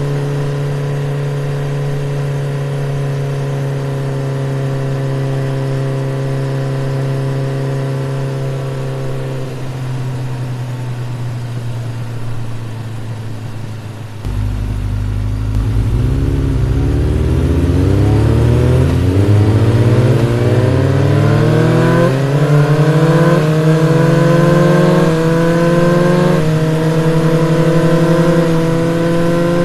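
Honda CB150X's single-cylinder engine under way: it holds a steady note, drops off about halfway, then accelerates with its pitch climbing in several steps before settling at a higher steady speed.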